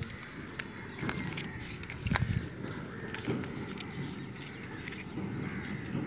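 A cast net's mesh rustling as it is handled and picked through by hand, with scattered small clicks and a louder bout of handling about two seconds in.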